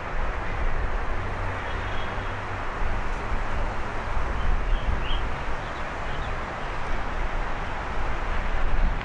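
Outdoor ambience: a steady low rumble with hiss from wind and distant city traffic, and a couple of faint high chirps.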